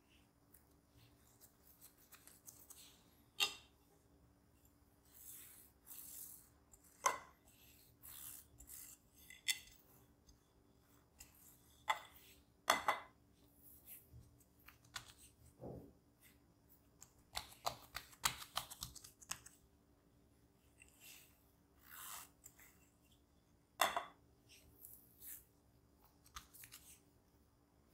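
Hands handling and shaping soft bread dough on a marble worktop: scattered soft pats, presses and rubbing sounds, with a few sharper taps against the stone.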